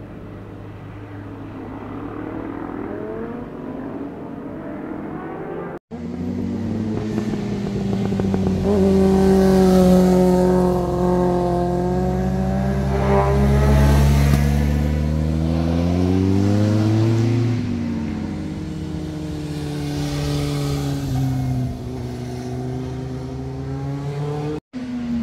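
Motorcycles riding through a hairpin bend. Several engine notes slide down and back up as the bikes slow for the curve and accelerate out. They are loudest about halfway through, and the sound breaks off briefly twice.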